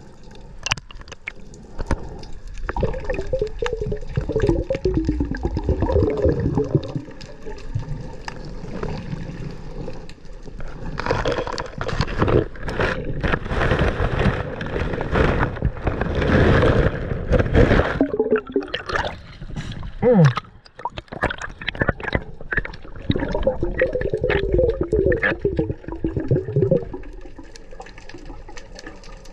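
Water gurgling and sloshing while snorkelling. There are wavering, bubbly gurgles near the start and again near the end, and a louder rushing stretch in the middle.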